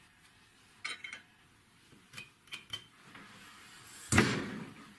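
Light metallic clinks of an Allen key on the bolts of a homemade angle-grinder cut-off stand, then the stand's pivoting grinder arm is swung down against its gas strut with a rising rush of noise and a loud metal clunk about four seconds in. The grinder is not running.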